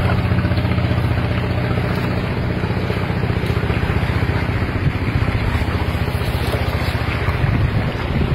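A steady engine hum runs throughout, with rough wind noise on the microphone over it.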